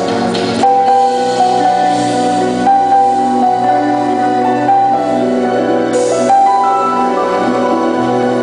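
Background music: gentle instrumental piece with held piano or keyboard notes and slowly changing chords.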